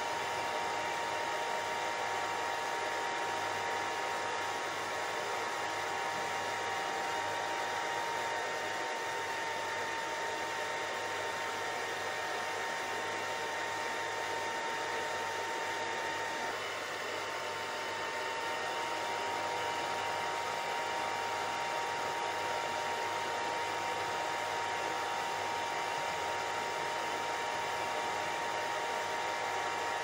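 Steady white-noise hiss with a faint steady whine running through it, dipping slightly in level a little past halfway.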